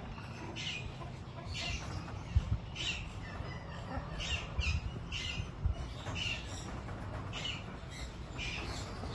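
A bird calling over and over: short, high-pitched calls repeated roughly every half second to a second, with a few dull low bumps underneath.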